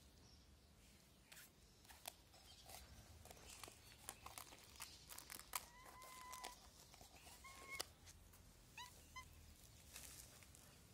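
Cat meowing faintly: two drawn-out meows in the middle, then a couple of short, higher calls, over light clicks and scuffs.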